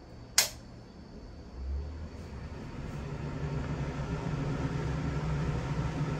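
A KDK 15WUD window exhaust fan being switched on: a sharp click, then about a second and a half in its motor starts with a low hum. The whir of air grows louder as the blades spin up, and levels off to a steady run.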